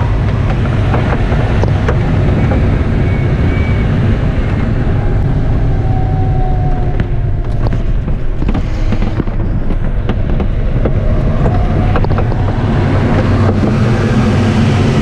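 Steady rush of airflow around the canopy of an ASK21 glider in aerobatic flight, heavy in the low range, with a faint whistle that drifts in pitch around the middle.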